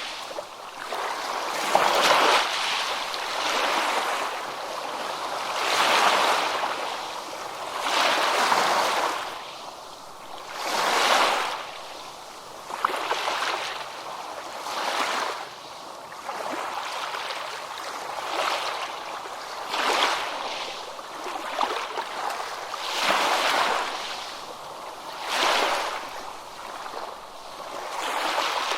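Ocean waves on a beach: small waves break and wash up in a steady rhythm, a surge of surf every two to three seconds.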